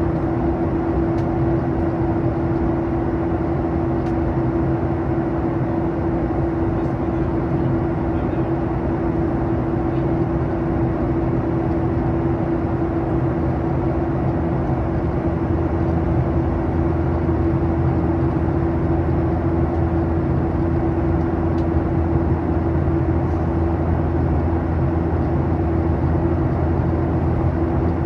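Steady cabin noise of a Boeing 737-800 in flight, heard inside the cabin: the drone of its CFM56-7B turbofan engines and rushing airflow, with a steady two-note hum. A deeper rumble grows stronger about halfway through.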